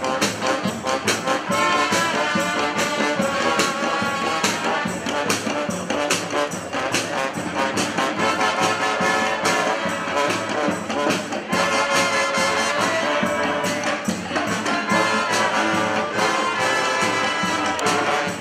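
Brass band playing an instrumental tune, horns over percussion that keeps a steady beat.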